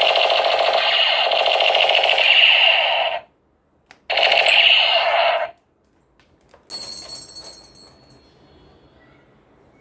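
Toy machine gun firing its rapid rattling sound effect in two bursts, the first about three seconds long and the second about a second and a half, with a short click between. A fainter clatter follows a little later and dies away.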